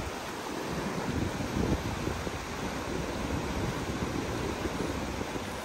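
Steady rush of river water, with wind buffeting the microphone in uneven low rumbles.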